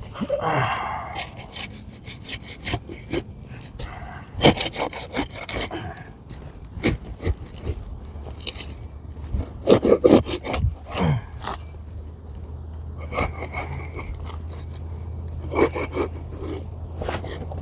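Thin flat roofing bar scraping and prying under asphalt shingles, cutting through the tar sealant strip in irregular rasping strokes and clicks.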